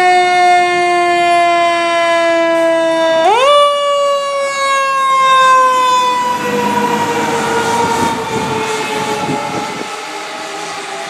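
Fire engine siren sounding a wail: the pitch jumps up about three seconds in, then slowly falls for the rest of the time. A low rumble joins in partway through as the truck goes by.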